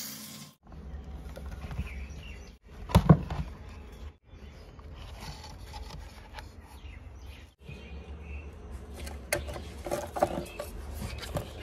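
Handling noise of speaker and amplifier parts being fitted by hand, over a low steady rumble of background noise: one sharp knock about three seconds in and a few clicks near the end, broken up by several abrupt cuts to silence.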